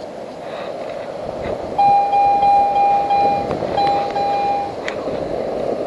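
Metal detector giving a steady, high-pitched target tone in two stretches, a long one about two seconds in and a shorter one after a brief gap, as it is held over a buried coin being dug out; a short click follows, over a steady background rush.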